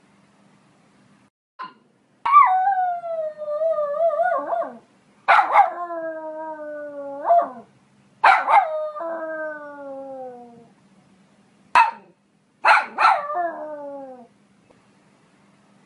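Poodle howling and yipping: four drawn-out howls of about two seconds, each starting with a sharp bark and sliding down in pitch, with short yips between them.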